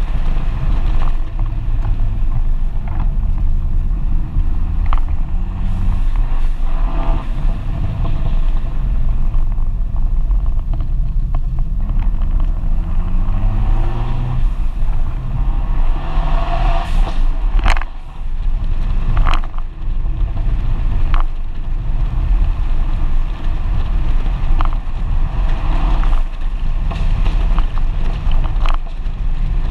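FIAT 124 Spider Abarth's turbocharged 1.4-litre four-cylinder engine under way, its pitch rising and falling as the driver accelerates and changes gear, with a brief dip in the sound a little past the middle. Wind and road noise rush through the open cockpit.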